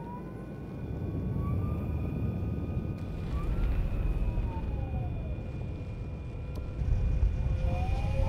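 Zero SR/F electric motorcycle riding at speed: the electric drive's whine glides up and down in pitch over a steady rush of wind and road rumble, and rises again near the end as the bike accelerates.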